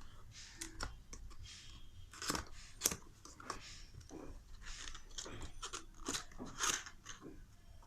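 Cardboard box being opened and its packaging handled: a run of short, irregular rustles, scrapes and clicks of cardboard and plastic wrapping.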